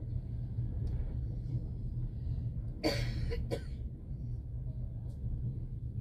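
Passenger train running, a steady low rumble heard inside the carriage; about three seconds in, a person coughs twice.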